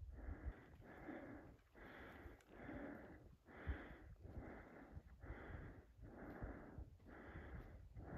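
A person breathing hard close to the microphone: quick, even, audible breaths, about one a second, as if out of breath.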